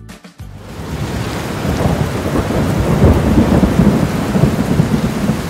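Heavy rain pouring, with a low rumble of thunder rolling through the middle. It swells in over the first second as the last guitar notes fade.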